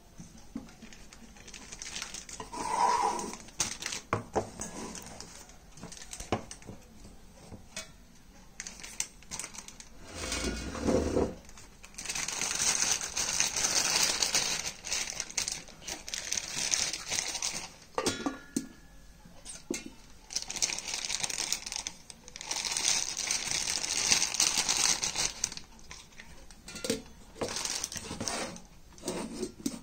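Stainless-steel mixer-grinder jars clinking and knocking as they are handled and set down, with plastic wrapping crinkling in stretches of several seconds as the lids are pulled out.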